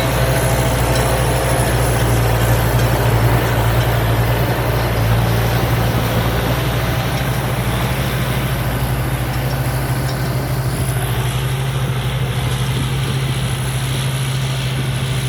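Rice combine harvester with a 260-horsepower engine running steadily at work, a strong low engine hum under the clatter and rush of the harvesting machinery. It gets a little quieter and duller about two-thirds of the way through.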